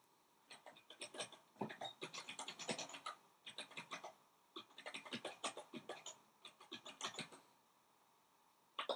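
Faint typing on a computer keyboard: runs of quick key clicks for about seven seconds, then a pause and a single click near the end.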